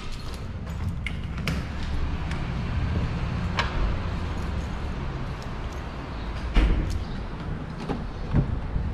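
Steady low rumble of a car driving, heard from inside the cabin, with a few sharp knocks and clicks along the way.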